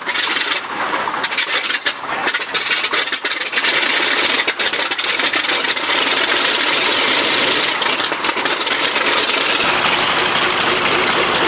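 Light aircraft piston engine running: a steady, noisy drone with a fine crackle, growing louder about four seconds in.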